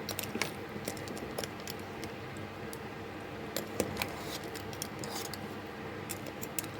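Spoon stirring curry lobster in a cooking pot, with scattered light metallic clicks and knocks against the pot over a faint steady hum.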